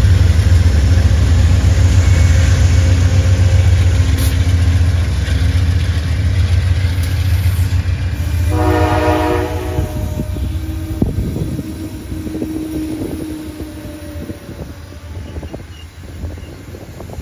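Amtrak GE P42DC diesel locomotives pulling the train past: a deep engine rumble that eases as they move off, and a short horn blast about eight and a half seconds in. Then the bilevel Superliner cars roll by with wheels clicking over the rail joints.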